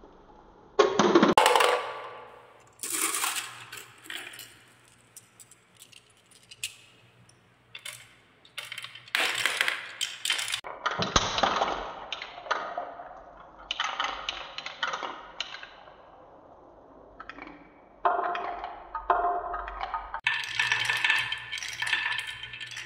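Glass marbles rolling and clattering down wooden marble-run tracks and around a wooden spiral, clicking against the wood and each other. The clatter comes in bursts as batches of marbles run, with quieter stretches between.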